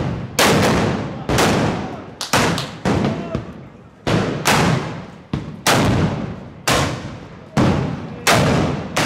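Black-powder arquebuses firing blank charges one after another, about a shot a second at uneven spacing, each loud bang followed by a long fading echo.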